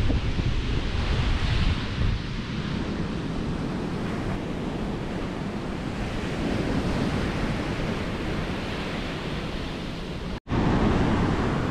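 Ocean surf breaking and washing up a sand beach, a steady rushing noise, with wind buffeting the microphone. The sound cuts out for an instant near the end.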